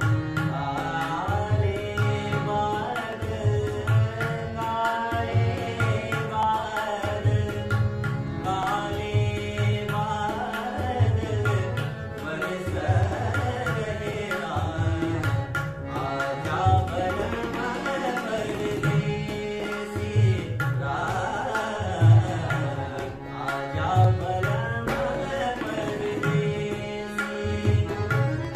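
A young man singing a Marathi song, accompanied by harmonium and tabla, with the tabla keeping a steady rhythm of low bass strokes under the melody.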